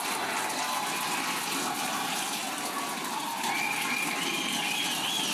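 Crowd cheering and applauding, with high whoops and shouts rising over the noise from about three and a half seconds in.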